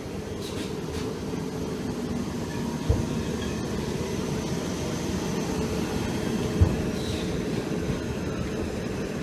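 Train running at the platform, a steady low rumble, with two dull low thumps, about 3 seconds and about 6.5 seconds in.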